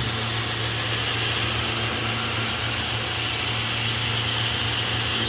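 Belt sander running steadily with a steel knife blade pressed against the belt, grinding the bevel: an even, hissing grind over the motor's steady hum.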